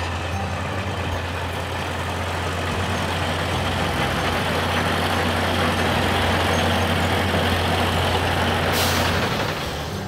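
Heavy truck engines running steadily, getting a little louder. A short hiss of air brakes comes about nine seconds in.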